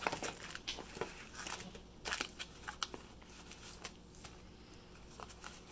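A small taped cardboard box being opened by hand and a clear plastic bag pulled out and handled: scattered crackles, clicks and rustles, busiest in the first three seconds, then sparser.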